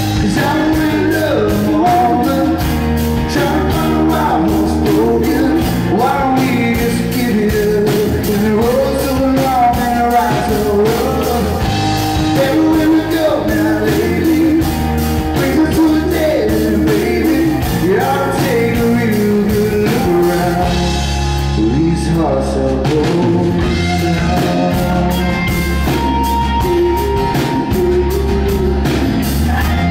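Live rock band playing a song: acoustic and electric guitars, electric bass and drum kit, loud and steady.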